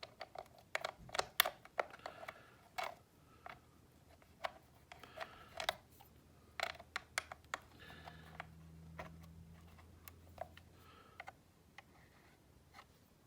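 Irregular sharp clicks and taps of small screws, an Allen key and hard plastic holster parts being handled, with a faint low hum for a couple of seconds near the middle.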